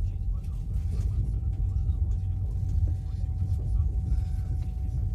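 Steady low rumble of a moving passenger train as heard inside the carriage, wheels running on the track, with a faint steady hum over it.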